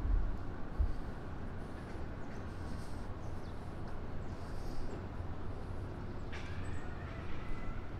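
Steady city background noise, the hum of distant traffic, with a couple of low thumps near the start.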